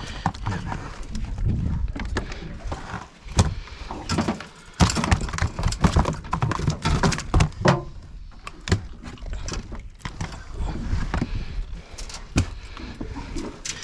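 Irregular knocks, clatters and rattling of fishing gear being handled in a small boat, over a steady low rumble.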